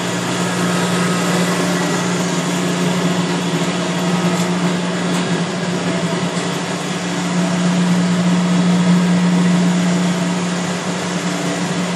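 Steady mechanical hum of a working boiler room: the 1966 Cleaver Brooks oil-fired boilers running along with their circulator pumps, a constant drone with one strong low tone under a wash of machinery noise.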